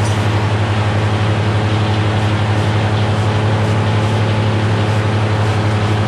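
Cummins naturally aspirated six-cylinder diesel driving a Meadows No. 1 circular sawmill, running loud and steady at a constant speed.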